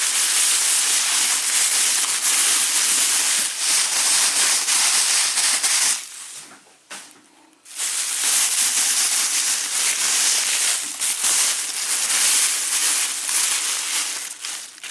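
Packing material in a shipping box rustling and crinkling as hands dig through it to find the items packed inside, with a pause of about a second and a half some six seconds in.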